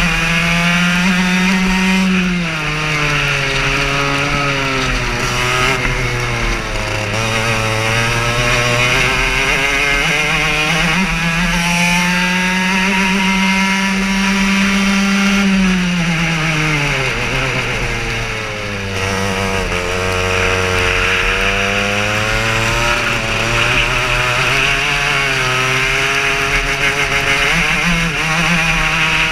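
Racing kart's small engine running hard, heard from the kart itself: its pitch climbs with speed, drops sharply about two seconds in and again past the halfway mark, then climbs again. A steady hiss runs under it.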